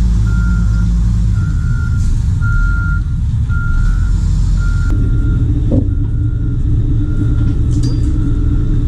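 Heavy wheel loader's engine running steadily while its back-up alarm beeps about once a second as it reverses with a trawl door hung on chains. The beeping gets fainter about halfway through.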